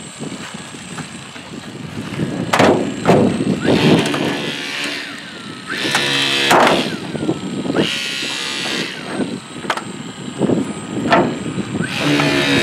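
Hydraulic rescue spreaders forcing a car's hood hinge: sharp cracks and pops with stretches of squealing metal as the hinge is bent apart.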